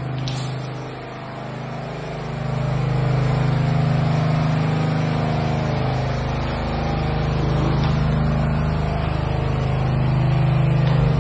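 A steady low mechanical drone, like an engine or motor running, that swells about two seconds in and holds.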